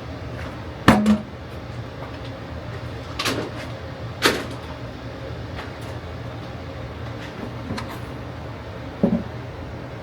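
Four sharp knocks and clatters, the first about a second in and the loudest, then others around three, four and nine seconds in, over a steady low hum.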